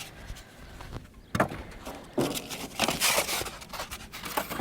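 Cardboard shipping box being opened and its contents handled: a sharp knock about a second and a half in, then scraping and rustling of the packaging.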